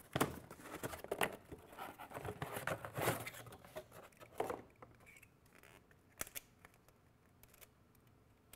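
Plastic packaging rustling with sharp clicks and snips as a spool of PLA filament is handled and unwrapped. It is busiest in the first half, then settles to a few separate clicks.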